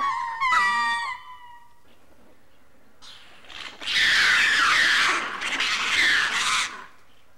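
Ring-tailed lemur alarm calls: a run of pitched yelping calls that bend up and down, ending about a second in, then after a pause loud, harsh shrieking from about three to seven seconds in. The alarm is raised at a bird of prey overhead.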